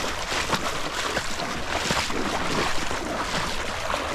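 Legs wading through shallow river water, sloshing and splashing with each stride.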